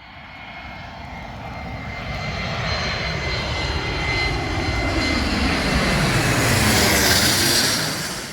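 Fixed-wing airplane flying past: the engine sound builds from far off to a loud pass about seven seconds in, with a steady high whine over it, then fades out near the end.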